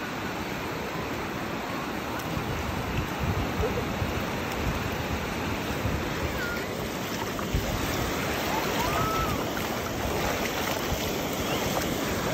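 Surf on a sandy beach: small waves breaking and washing over wet sand in a steady rush.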